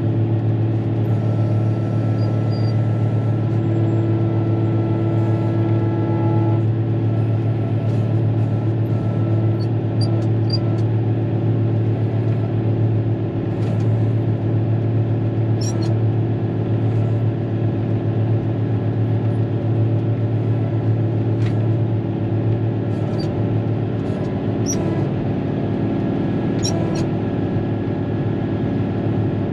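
Caterpillar motor grader's diesel engine running steadily, heard from inside the cab, with a steady higher whine over the first six seconds or so and a few sharp clicks later on.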